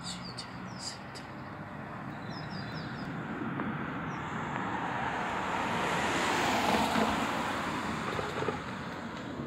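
Jet noise from a Boeing 737's CFM56 turbofan engines as the airliner passes overhead: a broad rushing rumble that swells for several seconds, is loudest about seven seconds in, then fades. A few small bird chirps come near the start.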